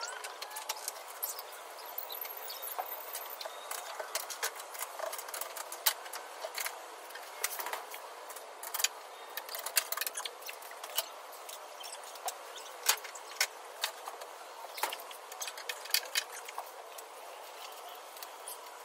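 Metal hand tools clinking: irregular sharp clicks and clinks of sockets, extensions and adapters being handled and used on bolts, over a steady hiss.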